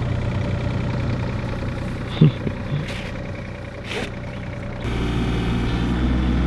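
Excavator's diesel engine running steadily, with a single thump about two seconds in and a couple of sharp clicks. A little under five seconds in, the sound changes abruptly to a louder, deeper drone.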